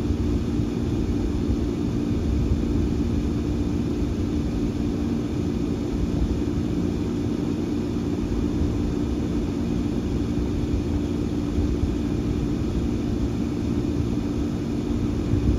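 Steady engine rumble with a constant low drone, unchanging throughout.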